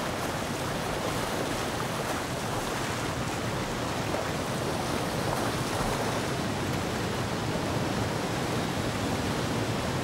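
River torrent rushing through rapids: a steady, even rush of churning water.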